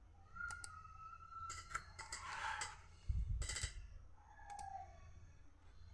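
A few sharp clicks at a computer, with a louder clatter and low thump a little past halfway.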